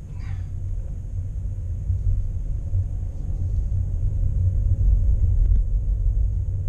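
Steady low rumble of a Škoda car's engine and tyres heard from inside the cabin as it drives slowly, growing a little louder just past the middle.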